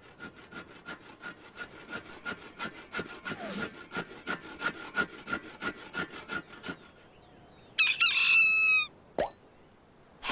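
Handsaw sawing through a wooden log in quick, even strokes, about five a second, for around seven seconds. Then a rooster crows briefly, followed by a single click.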